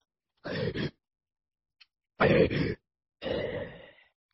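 A man's voice giving three short pained grunts and groans, the second the loudest and the last fading away, voicing a character hurt and collapsing.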